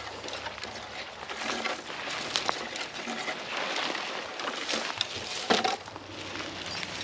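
Footsteps and rustling on the forest floor, with scattered light crunches and clicks.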